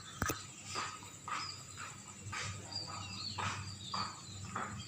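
Swiftlets calling: short chirps and twittering calls repeating about twice a second, with one sharp click near the start.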